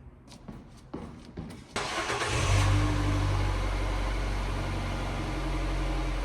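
A few clicks and knocks, then about two seconds in a 2014 Nissan Versa's 1.6-litre four-cylinder engine cranks, catches and settles into a steady idle.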